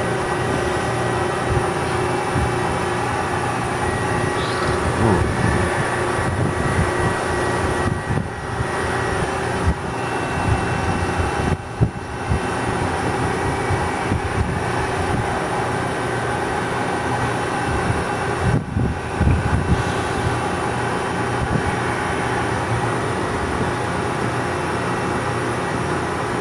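DoAll automatic bandsaw running, a steady machine hum with several constant tones, with a few brief knocks partway through as it cycles.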